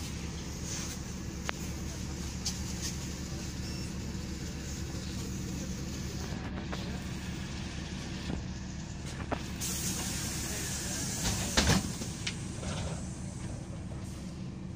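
City bus engine idling at a stop. About ten seconds in there is a burst of compressed-air hiss, then a loud thump as the pneumatic doors close.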